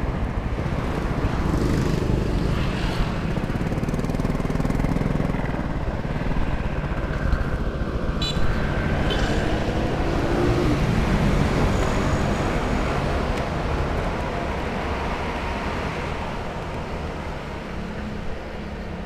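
Honda scooter riding on a road: engine running under steady road and traffic noise, with a couple of sharp clicks midway. The noise eases off toward the end as the scooter slows and pulls up.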